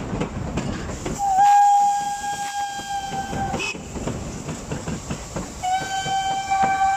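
Coupled steam locomotives passing close by, their running gear and exhaust beating in a quick rhythm. A steam whistle blows a long steady blast starting about a second in, the loudest sound, and sounds again from about five and a half seconds in.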